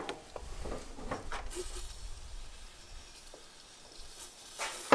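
A few light knocks of handling, then a steady high hiss from about a second and a half in: an aerosol can of PB Blaster penetrating oil spraying at a stuck spark plug on a riding mower engine.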